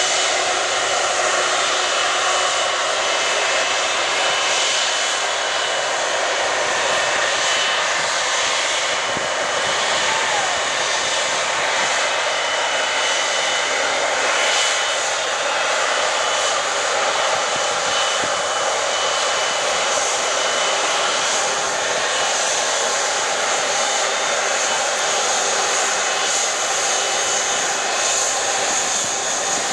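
Airbus A330-243's twin Rolls-Royce Trent 700 turbofans running at taxi idle as the airliner taxis past. The sound is a steady jet rush with thin, high, constant whines.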